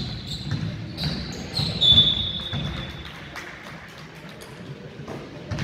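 Basketball game play on a hardwood gym court: a ball bouncing in a run of dull thuds, with short high squeaks of sneakers on the floor in the first half.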